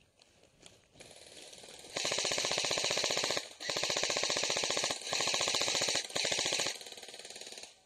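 Airsoft electric rifle, a Bravo RDW with a Systema motor, mosfet and 7.4 V battery, firing on full auto in three or four bursts with short breaks between them.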